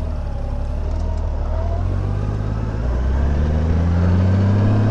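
Motorcycle engine pulling away and accelerating, its pitch rising steadily through the second half.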